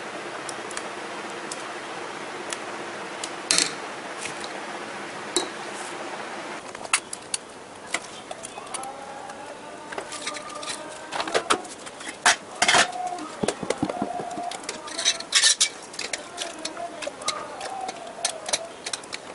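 Stainless steel ladle, spoons and vessels clinking and scraping as chutney is scooped into small steel containers, with many sharp clinks. A steady hum fills the first six seconds or so.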